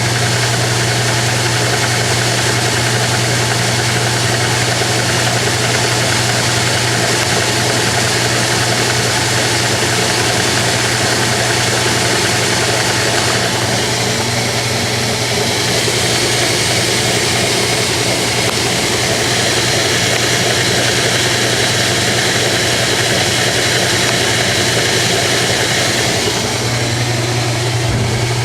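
Washing machine running with its outer cabinet removed, so the motor and drive are exposed: a steady, loud motor hum under the noise of the mechanism and water. The sound grows hissier about halfway through and changes again near the end.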